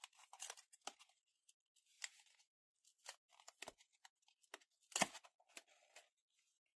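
Fingers picking at and peeling open the glued end flap of a small cardboard box: a run of short, scattered scratches and rips of cardboard, the loudest about five seconds in.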